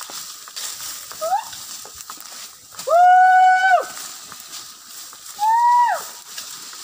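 Loud, high-pitched hooting calls: a short rising whoop, then two long held notes about a second each, the second a little higher. Each long note slides down at its end.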